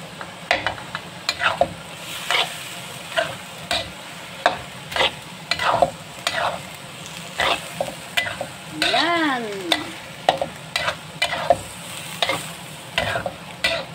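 Spatula stirring and scraping ground pork, tofu and oyster sauce in a sizzling pan, with sharp strokes about once or twice a second over a steady frying sizzle. About nine seconds in there is one short squeal that rises then falls.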